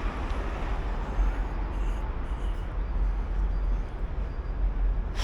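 Steady outdoor urban background noise with a strong low rumble.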